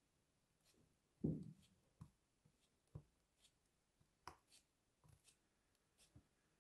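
Kinetic sand cube being cut with a knife blade and pulled apart by hand: soft, quiet crumbling thuds and small clicks. The loudest is a dull thump about a second in.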